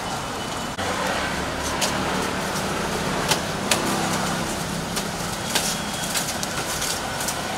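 Street traffic noise with a motor vehicle engine running nearby, its low hum strongest in the first half. A few sharp clicks and knocks come through it.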